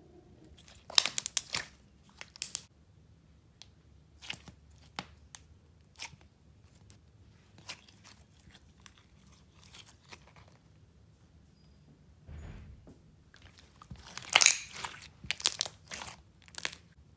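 Pink clear slime being stretched, folded and squished by hand, giving clusters of sharp sticky clicks and pops. The loudest burst comes near the end, as the slime is pressed down and kneaded against the table.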